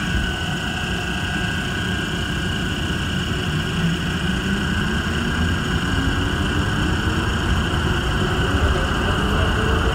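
Automated airport people-mover train accelerating through a tunnel: a low running rumble with the whine of its propulsion electronics and traction motors rising steadily in pitch, over steady high tones.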